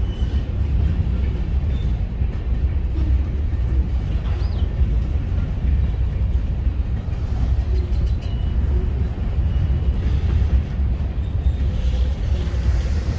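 Freight train of covered hopper cars rolling past at steady speed: a continuous low rumble of steel wheels on the rails, with a few faint, short high squeals from the wheels.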